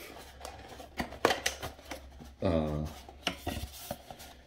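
A cardboard model box being handled and moved, giving scattered light taps, clicks and rustles. A short wordless vocal sound from a man's voice comes about two and a half seconds in.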